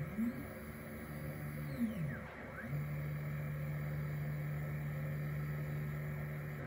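Anycubic Photon Mono 2 resin printer's Z-axis stepper motor whining as it drives the build plate. The pitch glides up and down several times in the first three seconds as the motor speeds up and slows down, then holds one steady tone.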